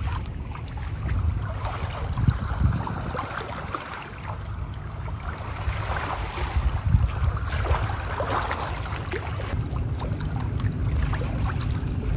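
Small, gentle waves lapping and splashing at the stony water's edge, with wind rumbling steadily on the microphone.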